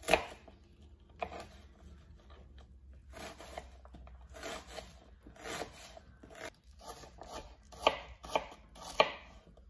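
Kitchen knife slicing and dicing a red onion on a plastic cutting board: irregular cutting strokes, with a few sharper knocks of the blade against the board.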